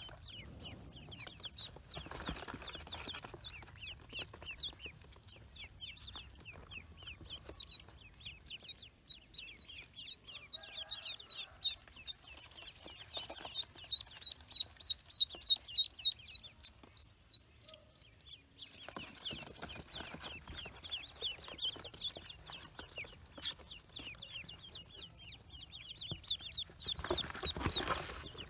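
A brood of newly hatched Pekin ducklings peeping constantly: many short, high, falling peeps overlapping. They grow louder and faster in the middle.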